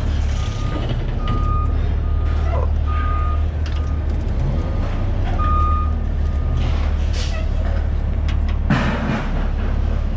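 A heavy vehicle's reversing alarm beeping over and over, some beeps louder than others, over the steady low rumble of a diesel engine. A loud crash comes about nine seconds in.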